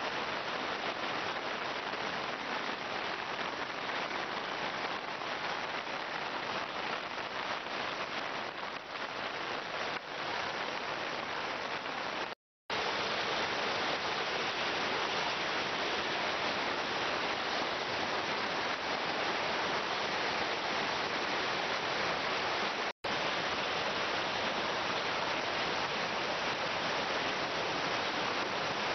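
Steady rush of a swollen stream in flood, muddy floodwater churning fast over its banks, mixed with the hiss of heavy rain. The sound cuts out briefly twice, about 12 and 23 seconds in.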